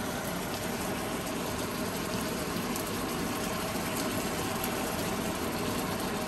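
Chicken and sauce sizzling steadily in a pan on the stove, with faint crackles now and then.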